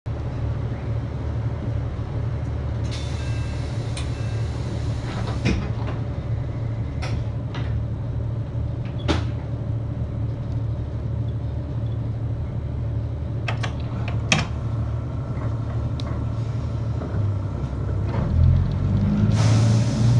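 KiHa 85 series diesel railcar's engine idling with a steady low drone, with scattered clicks and knocks. Near the end the engine note steps up and grows louder as it takes power.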